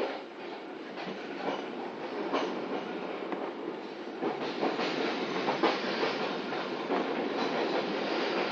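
Passenger train coach running along the line, heard from inside the coach. Steady rumble with irregular clacks as the wheels pass over rail joints.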